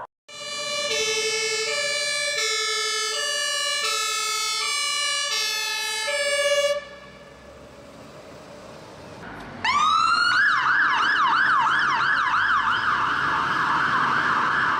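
Fire engine siren. A two-tone high-low wail alternates steadily for about six seconds, then after a short quieter gap a siren winds up and switches to a fast warbling yelp.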